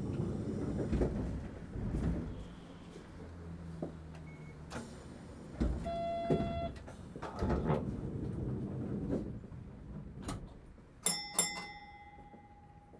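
Inside a standing Toden Arakawa Line streetcar: low rumbling running noise with knocks and clatter, and a short buzzer tone about six seconds in. Near the end come two quick bright chime strikes whose tone rings on for a couple of seconds.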